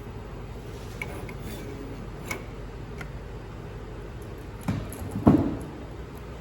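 Steady low hum of machine-soldering equipment, with a few light clicks and then two louder knocks close together about five seconds in, the second the loudest.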